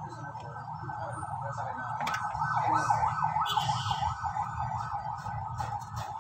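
A siren warbling quickly up and down in pitch, loudest in the middle, over a steady low hum, with a few light metallic clicks near the end.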